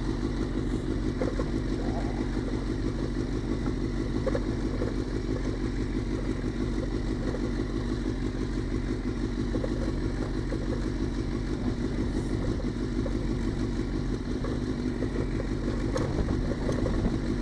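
Suzuki GSX-R600 sport bike's inline-four engine running steadily at low revs, with no revving up or down.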